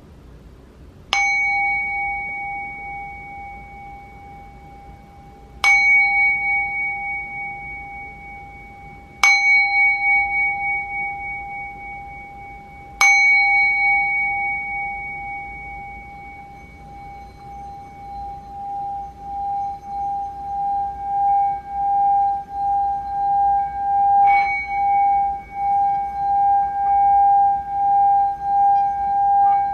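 Small hand-held hammered-metal singing bowl struck four times with a wooden mallet, each strike ringing out and slowly fading. Then the mallet is run around the rim, building a sustained wavering tone that swells louder, with one lighter tap partway through.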